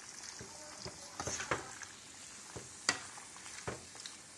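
A plastic spoon stirring chicken and vegetables in a pan of sizzling curry, with a faint steady sizzle and scattered scrapes and taps of the spoon against the pan; the sharpest tap comes near the end.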